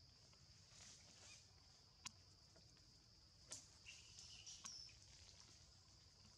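Faint outdoor ambience: a steady high insect drone, with two sharp clicks about two and three and a half seconds in and a few brief chirps soon after.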